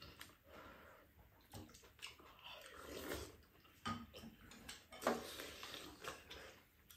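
Two people eating fried rice: chewing, with spoons and chopsticks clicking now and then against ceramic bowls and a metal pot.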